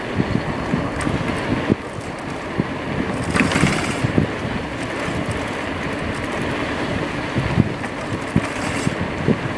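Wind buffeting the microphone and road noise while riding an A2B Metro electric bike along a paved street, with frequent short low knocks and rattles, and a brief louder hissing rush about three seconds in.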